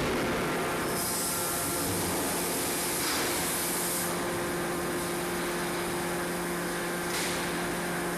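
Steady industrial machinery noise: a continuous hum under a hiss, with no hammer blows. The hiss turns brighter about a second in and eases a few seconds later, and a steady tone comes in partway through.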